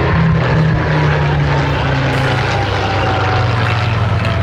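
Piston-engined World War II-type fighter aircraft in flight, its propeller engine running loud and steady, with a note that slowly drops in pitch as it passes.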